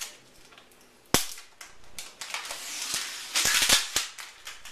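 Handling noise: a single sharp snap about a second in, then rustling and crinkling with light clicks, loudest shortly before the end.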